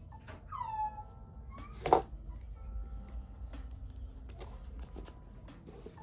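A cat meows once, a short cry falling in pitch, then a sharp tap about two seconds in, with small clicks of paper and pen handling on a desk.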